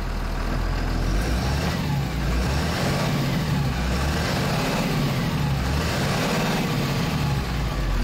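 Cummins diesel engine of a Blue Bird school bus running, heard from the driver's seat. It has just started again after a defective starter relay was replaced. Its engine speed comes up about a second in, rises and falls a few times, and settles back near the end.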